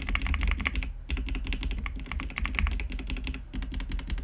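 Rapid typing on a Dark Project KD87A mechanical keyboard with Gateron Teal Cap switches: fast runs of keystroke clacks, with short pauses about a second in and again near the end.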